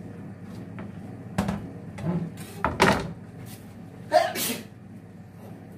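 A person sneezing several times in quick succession, the loudest sneezes about three and four seconds in, over a steady low hum.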